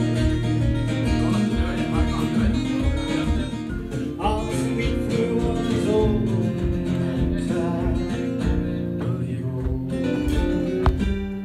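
Live acoustic guitar played by a solo performer, with a man singing into a microphone over it.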